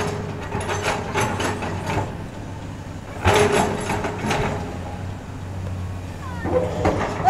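Sany SY215C hydraulic excavator's diesel engine running steadily under load, with irregular clanks and scrapes from the bucket working wet soil, loudest about three seconds in.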